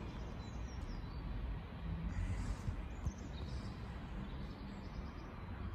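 Outdoor ambience on a station platform: a steady low rumble, with faint bird chirps about two to three seconds in.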